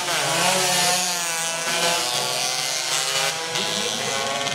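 Two-stroke 125cc underbone race motorcycles running at high revs as they pass, several engines overlapping, their pitch rising and falling.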